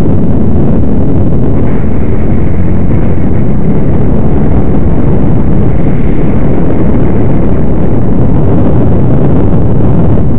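ATV engine running steadily while the quad rides along a gravel trail, a loud, even drone with no let-up or change in revs.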